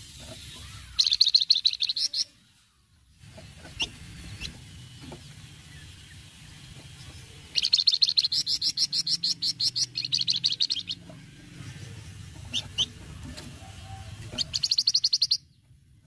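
Songbird known in Indonesia as the flamboyan giving its rapid rattling 'cretetan' call, fast chattering trills of sharp high ticks. It comes in three bursts, the longest about three seconds, with a few single chirps between them.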